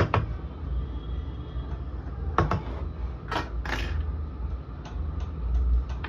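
Sharp clicks and knocks of hand tools being put down and picked up on a workbench, loudest in a cluster between about two and four seconds in, over a steady low rumble.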